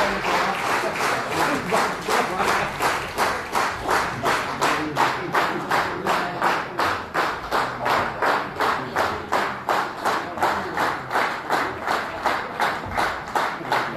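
Audience clapping in unison, a steady rhythmic applause at nearly three claps a second.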